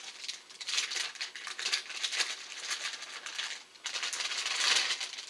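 Packaging being handled, crinkling and rustling in irregular bursts, loudest near the end.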